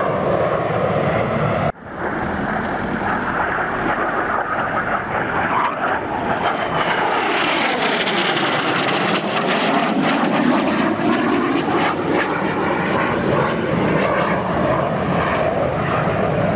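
Military jet aircraft flying past, a loud continuous jet engine noise. It breaks off abruptly and resumes at about two seconds in. Around the middle a tone sweeps down and then back up as a jet passes.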